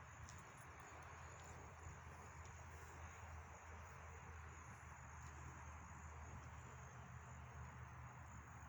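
Faint, steady high-pitched chirring of insects over a low, steady background rumble.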